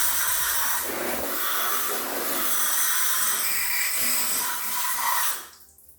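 Water from a hose spraying onto air-conditioner parts, flushing off dust loosened by the cleaner, as a steady rushing hiss. It cuts off shortly before the end.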